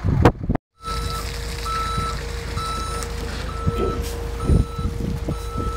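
Backup alarm of a fish-stocking tank truck beeping about once a second, each beep about half a second long, over a steady hum and the rumble of the running truck. The beeping starts about a second in.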